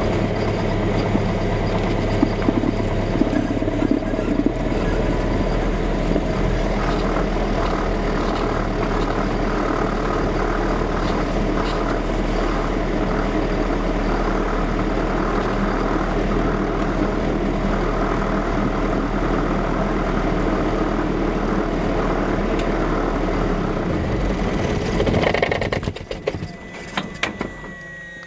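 Cessna 172's piston engine running at low power as the plane taxis, heard from inside the cockpit. About 24 seconds in, the engine is shut down: the drone stops, a few clicks follow, and a thin high whine that ran underneath sags in pitch as it fades.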